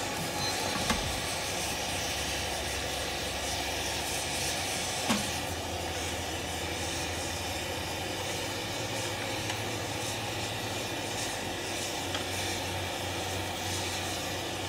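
Steady hiss of the gas burner flame in a connecting-rod heater, heating the rods' small ends so press-fit piston pins can be slid in. A couple of light knocks come about a second in and again about five seconds in.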